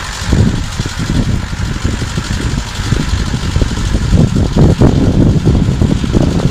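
Farm tractor engine running steadily as it pulls a harvesting implement through the field, under an uneven low rumble that grows a little louder after about four seconds.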